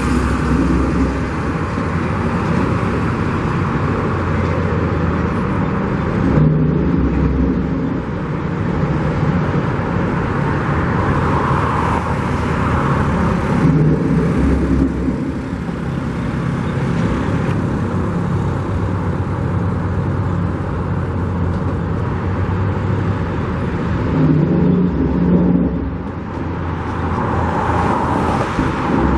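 Road traffic running steadily, with several vehicles passing close by in turn, each swelling up and fading.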